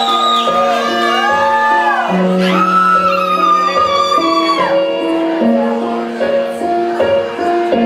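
Live rock band playing at full volume: an electric guitar lead with bent, gliding notes over a held bass line and stepping chords.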